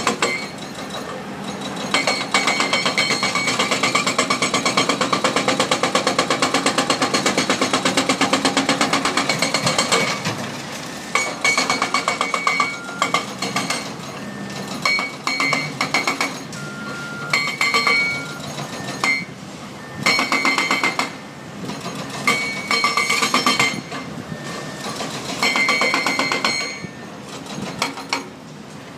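Hydraulic breaker hammering concrete in a fast, even run of blows for several seconds, then in shorter bursts with pauses between them.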